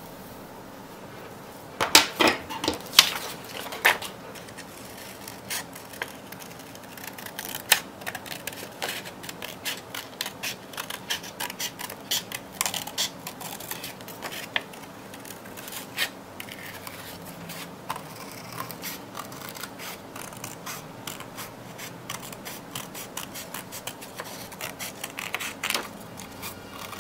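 Scissors snipping thin paper, cutting out a propeller shape: a long run of irregular short snips, with a few louder clicks about two seconds in.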